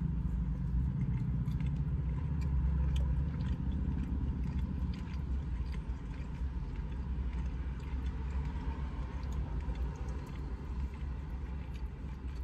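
Chewing and biting of chicken nuggets, with small scattered clicks from plastic forks and trays, over a steady low rumble inside a car cabin.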